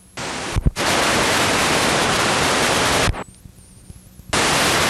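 Loud, even hiss of video static from a VCR playing past a gap in the VHS recording. It breaks off with a low thump about half a second in and again about three seconds in, falls quiet for about a second, and then comes back near the end.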